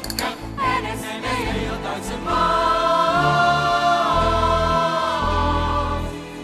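A stage cast singing together as a chorus. After a couple of seconds of short phrases, the song ends on one long held chord of several voices, which fades near the end.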